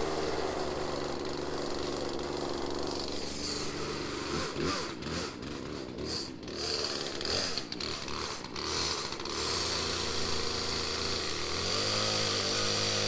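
Two-stroke gasoline chainsaw running, its engine note wavering and dipping irregularly through the middle, then settling and stepping up in pitch near the end.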